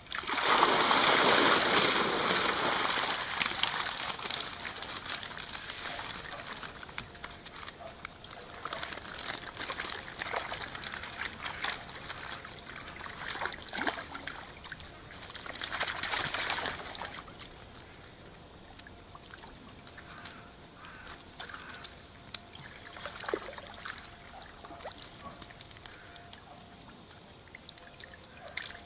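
Water streaming and splashing out of a mesh keepnet as it is lifted from a river. A loud gush at the start, further surges about a third and about halfway through, then thinner trickles and drips.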